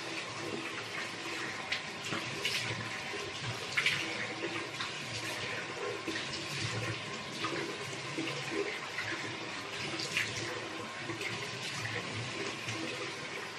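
Tap water running into a bathroom sink, with irregular splashes as water is scooped up and splashed onto the face to rinse it.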